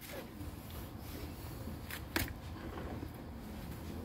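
Quiet outdoor background with a steady low rumble and two short sharp clicks a quarter-second apart, a little after two seconds in.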